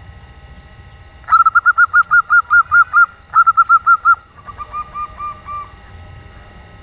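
Female zebra dove (perkutut) giving a rapid 'nyelir' call: a quick run of short, even notes starting about a second in, a second shorter run right after, then a softer, slightly lower run of notes.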